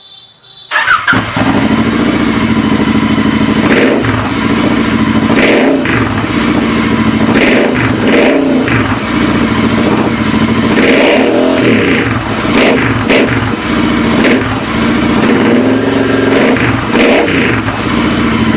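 Royal Enfield Interceptor 650's parallel-twin engine breathing through an aftermarket AEW exhaust. It comes in suddenly about a second in and is revved up repeatedly between spells of idle.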